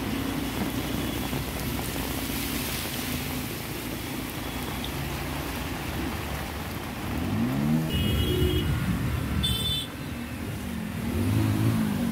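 Road traffic driving through floodwater: car and motorbike engines running with a steady wash of water. An engine revs up and down about seven seconds in and again near the end, and there are two brief high beeps around eight and nine and a half seconds.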